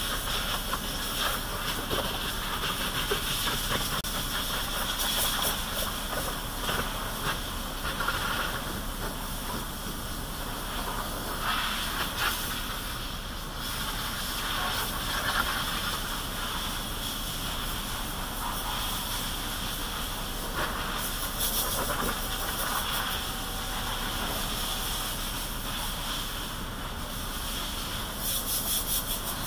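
Continuous hissing spray, rising and falling in uneven surges, from cleaning work in the engine bay under the raised hood, heard from inside the car.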